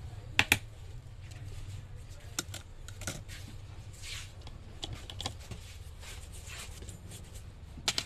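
Scattered sharp clicks and taps from hands handling an opened smartphone and tools on a repair mat, with some soft rubbing between them over a steady low hum. The two loudest clicks come close together about half a second in, and another comes just before the end.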